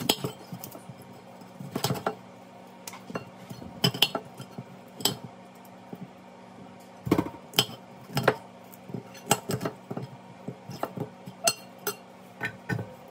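A kitchen knife cutting broccoli florets on a ceramic plate, the blade knocking and clinking against the plate in irregular taps, roughly one every second or so.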